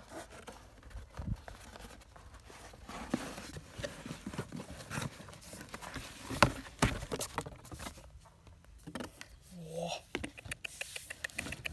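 Cardboard box and laptop being handled: cardboard flaps rustling and scraping, with scattered knocks and taps as the laptop is lifted out and set on the box, the sharpest knock about six seconds in.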